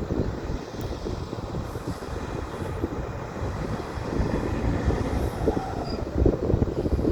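Old Komatsu bulldozer working: its diesel engine runs under load with the clatter of its steel tracks. The knocking grows heavier about six seconds in.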